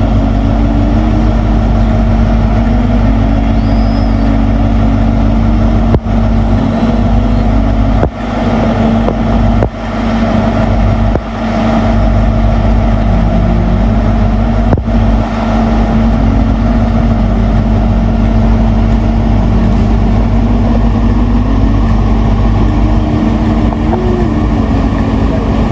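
Class 43 HST power car's diesel engine running steadily at a standstill, a loud, even hum. A few sharp knocks come between about six and fifteen seconds in.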